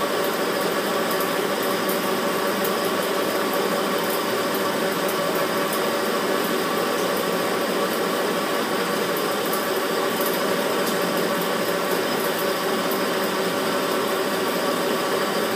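Metal lathe running with the power feed engaged, its tool taking a turning cut on a large steel workpiece to form a band for a steady rest. A steady machine sound with several held tones and faint scattered ticks.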